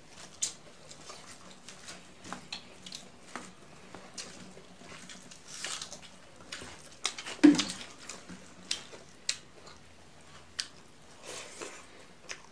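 Close-up eating sounds: chewing and wet mouth clicks and smacks, with fingers working rice and dal curry by hand. One louder, lower sound comes a little past halfway.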